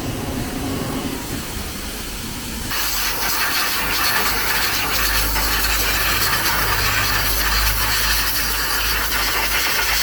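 Pressure washer spraying a jet of water over a car's engine, a loud steady hiss that starts abruptly about three seconds in, with a low hum joining under it shortly after. The rinse washes oil residue off the freshly overhauled engine.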